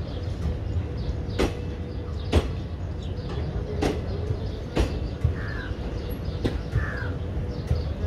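Railway platform ambience by a standing passenger train: a steady low hum with a faint steady tone under it, six sharp knocks at uneven intervals, and two short crow caws a second and a half apart in the middle.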